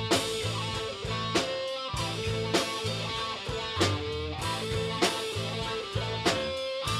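Instrumental outro music: guitar over a drum kit, with a steady beat.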